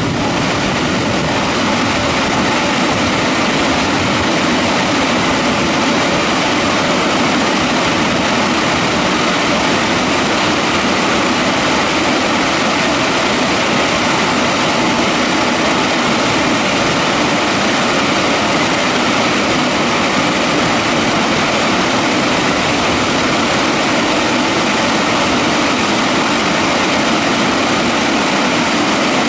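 The drying blowers of a WashTec EasyWash portal car wash running at full power, a loud, steady rush of air as the gantry moves over the car.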